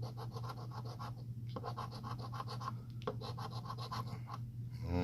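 A scratch-off lottery ticket being scratched: three runs of quick, rapid scraping strokes across the ticket's latex coating, with short pauses between them.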